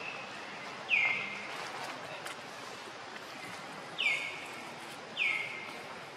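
A bird calls three times, about a second in, at four seconds and just after five: each call is a sharp note that falls in pitch and then holds briefly. A steady outdoor hiss runs beneath.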